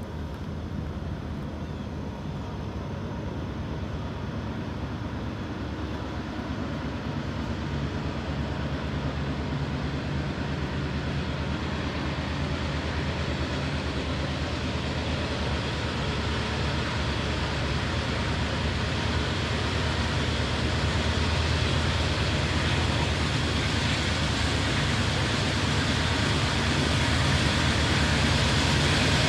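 Diesel freight locomotives working hard uphill: a lashup of two GE AC4400CWs and an EMD SD40-2 under heavy throttle, a steady engine drone that grows louder as the train approaches.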